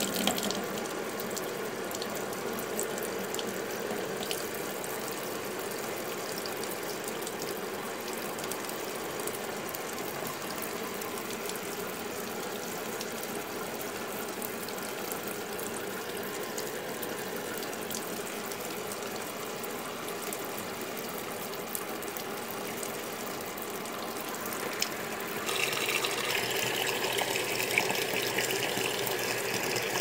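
Brastemp Ative BWL11 top-loading washing machine filling: a steady stream of water pouring from the inlet into the tub of clothes. About 25 seconds in, the sound turns louder and brighter as the agitator starts working the load.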